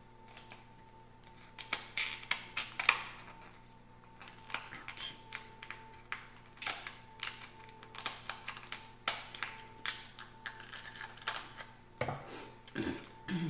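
Shells of boiled seafood cracking and snapping as they are cut with kitchen shears and peeled apart by hand: an irregular run of sharp clicks and cracks. A brief low hum near the end.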